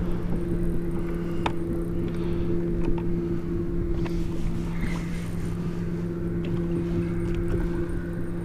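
A boat motor running with a steady, even hum, with a few faint ticks over it.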